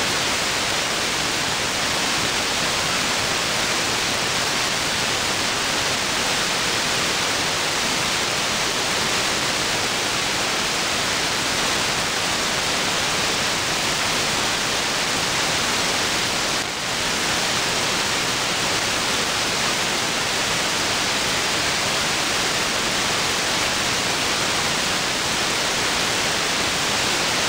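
Steady static hiss from an AM aircraft-band receiver (SDRplay RSP1 software-defined radio tuned to 125.575 MHz), with no transmission on the frequency. The hiss dips briefly once, about two-thirds of the way through.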